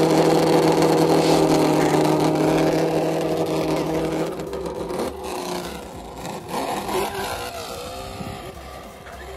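Traxxas Slash 4x4 VXL's on-board audio speaker playing a simulated engine sound: a steady idle for about four seconds, then quieter with some rising and falling revs as the truck pulls away.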